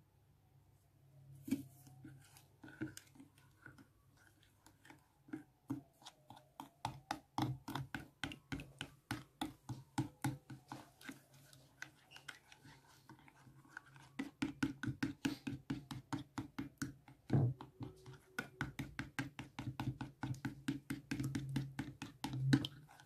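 A plastic spoon stirring slime powder and water in a glass bowl, scraping and clicking against the glass in quick strokes, several a second. The stirring starts sparsely and becomes steady after about five seconds.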